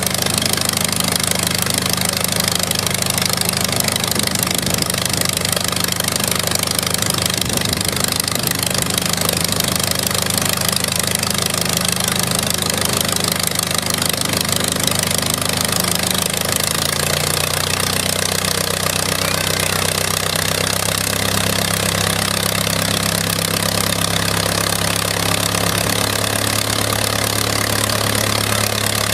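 Antique biplane's in-line piston engine running steadily on the ground, with the propeller spinning. About 17 seconds in, the engine note shifts lower.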